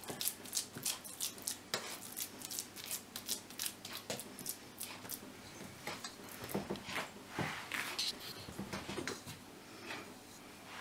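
Hands kneading raw chicken mince mixed with onion and spices in a metal bowl: soft, wet squishing and slapping, several small ticks a second, thinning out near the end.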